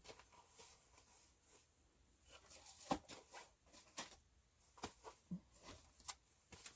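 Near silence with faint, scattered rustles and small clicks of glitter vinyl sheets being handled, the sharpest click about three seconds in.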